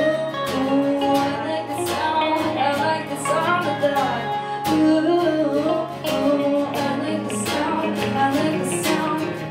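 Live country-pop band playing an instrumental break: acoustic guitar strummed in a steady rhythm over bass and drums, with a wavering melody line on top.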